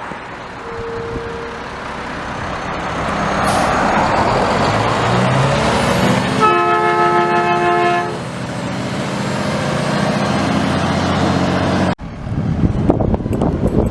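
Garbage truck engine running and growing louder as it draws close, with one horn blast of about a second and a half midway. The sound cuts off abruptly near the end.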